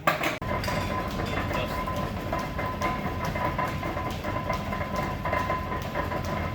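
A 1910s belt-driven lathe running, with a steady high whine and a regular clicking.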